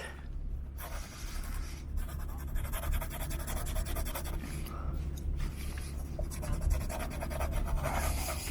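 Continuous scratchy rubbing and scraping as the exterior of a Rolls-Royce Cullinan is cleaned by hand, over a steady low rumble.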